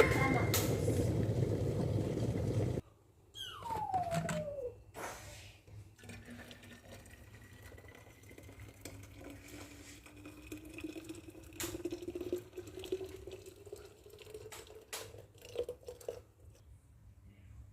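Hot water poured from an electric kettle into a thermos flask, the gurgling tone of the filling rising slowly in pitch as the flask fills, with a few light knocks. Background music plays for the first few seconds and cuts off.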